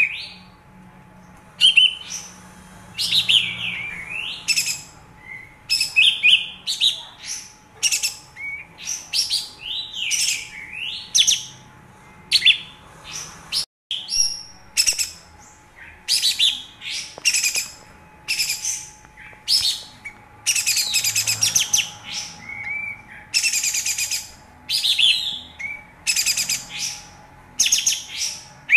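Olive-winged bulbul (kapas tembak) singing a rapid, unbroken string of short chattering, whistled phrases. It is a lure song meant to provoke a caged bulbul into singing and fighting display. The song cuts out for an instant about halfway through, and a faint steady hum runs underneath.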